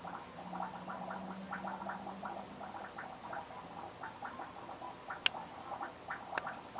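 Aquarium water bubbling and gurgling in quick, irregular pops, with a low steady hum for the first few seconds and a sharp click about five seconds in.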